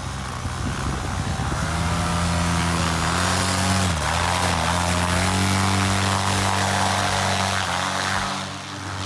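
Tandem paramotor's engine and propeller opened up for the takeoff run: the pitch climbs as it revs up about a second and a half in, then it runs hard and steady, with a brief dip in pitch about four seconds in.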